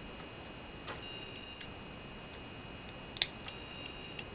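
Plastic Lego bricks being handled and pressed together: a few sharp, short clicks, the loudest a little past three seconds in, over a steady hiss with a faint high whine.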